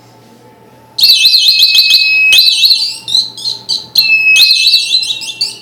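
Homemade laser-tripwire security alarm's electronic siren buzzer going off when the laser beam to its light-dependent-resistor sensor is cut. A loud, rapid up-and-down warble starts about a second in, breaks into short chirps for a moment, then warbles again.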